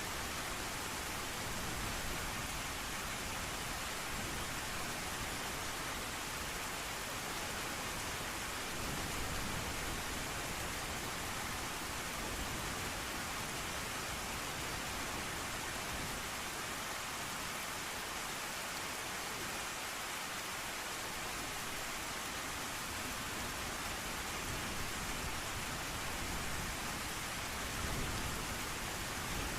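Steady rain falling, an even, constant hiss, with a low rumble under it that drops away for a few seconds past the middle.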